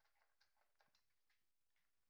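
Very faint, irregular clicking and crunching of dry kibble in a steel food bowl as a kitten shifts about in it, about three small clicks a second, dying away after about a second and a half.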